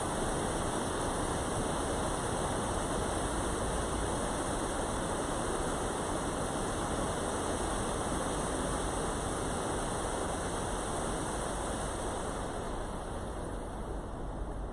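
Steady rushing of flowing stream water, an even hiss with no distinct events, growing slightly softer and duller near the end.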